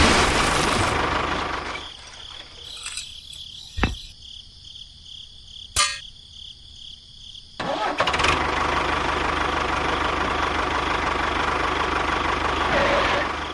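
A small motor runs and stops. After about six quieter seconds with two sharp clicks, it starts again and runs steadily until just before the end.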